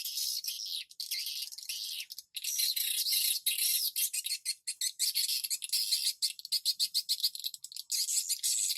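Swiftlet calls: a dense, continuous mass of rapid high-pitched twittering chirps, with no low sounds beneath them.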